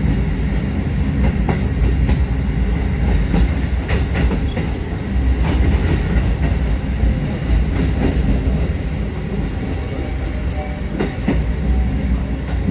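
Kotoden 1200-series electric train running on the rails, heard from inside the cab: a steady low rumble, with the wheels now and then clacking over rail joints.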